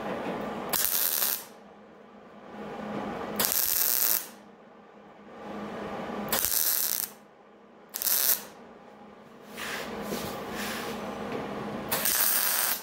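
MIG welder laying tack welds on sheet steel: five short crackling bursts of the arc, each under a second, with pauses between them.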